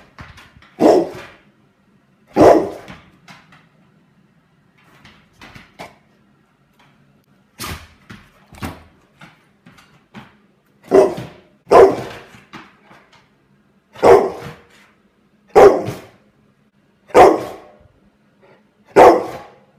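Pit bull-type dog barking at a spinning light-up fidget spinner held in front of it: about ten loud single barks a second or two apart, with a quieter stretch of a few seconds after the first two.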